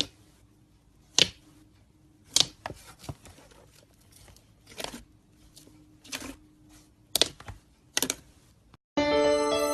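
Slime being handled, giving sharp clicks and pops about once every second. Music starts near the end.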